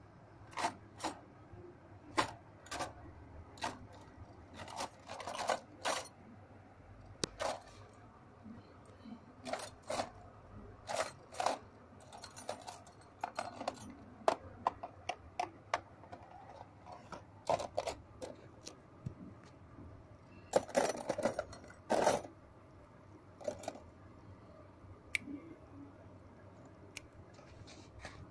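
Kittens scrambling and wrestling on a wooden shelf and cloth, giving irregular clicks, taps and scuffles from their paws and claws. The scuffling comes in denser flurries a few times.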